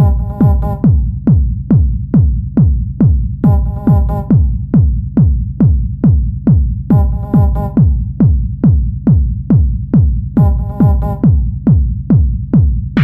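Techno track playing: a four-on-the-floor drum-machine kick at a bit over two beats a second, with a short synth phrase returning about every three and a half seconds.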